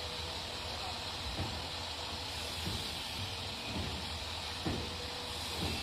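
A steady hiss with a faint constant hum underneath and a few soft taps.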